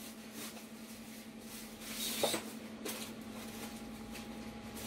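Quiet room tone with a steady low hum, a faint higher tone coming in past the middle, and a brief faint click a little over two seconds in.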